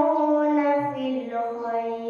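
A girl's voice reciting the Quran in tarannum style, one long melodic phrase drawn out on a held vowel, its pitch gliding gradually lower.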